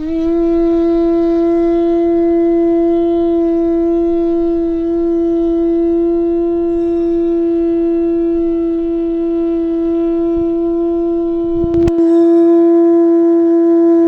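Carved Tibetan conch shell horn blown in one long held note, steady in pitch and rich in overtones, sounded to test its tone. A brief click falls about twelve seconds in, while the note carries on.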